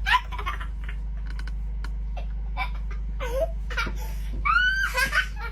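Young child making several short, high-pitched squealing vocal sounds, part giggle and part whine, over a steady low hum.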